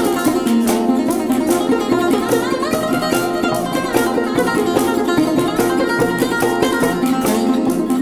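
Music on plucked string instruments: a quick run of short notes with sliding pitches over a steady low drone.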